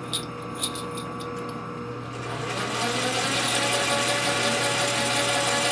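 A few light metallic clicks, then a Jet metal lathe starts up about two seconds in and runs steadily, its spindle spinning up with a slight rising whine.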